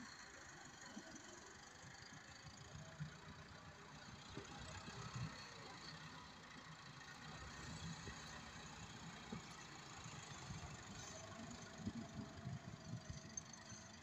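Faint, low rumble of tractor diesel engines running as a front-end loader tractor works, scooping and dumping sand into a trolley.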